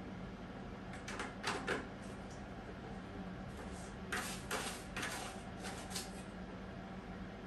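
Siamese cat scratching and digging in cat litter in a toilet-training tray: short, scratchy rustling strokes, a few about a second in and a longer run from about four to six seconds in.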